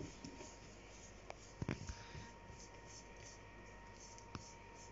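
Quiet rubbing of soft bread dough being rolled into strands by hand on a floured plastic tablecloth, with a few soft knocks, the loudest a dull thump about a second and a half in.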